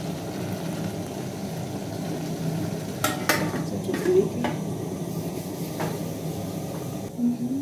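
Wooden spoon stirring a pot of potato and meat stew that is sizzling over a gas burner, under a steady low rush. About three seconds in, a metal lid is set on the aluminium pot with a couple of sharp clinks, followed by a few lighter knocks.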